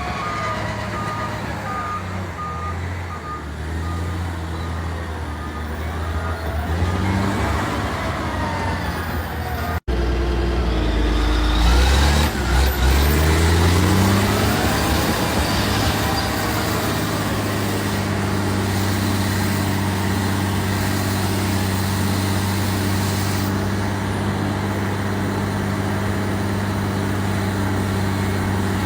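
Crawler bulldozer's diesel engine running steadily, with a backup alarm beeping briefly at the start. About ten seconds in the sound drops out for an instant and returns louder, the engine note rising for a few seconds and then holding steady.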